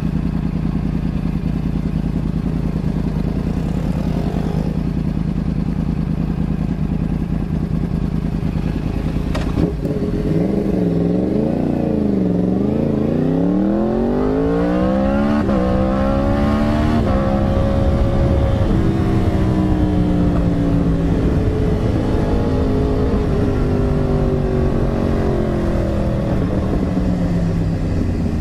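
Yamaha R1's inline-four engine idling steadily, then a sharp knock a third of the way in as the bike is put in gear. The revs wobble and then climb steeply as it pulls away, stepping at a couple of upshifts, and slowly fall again as it cruises on.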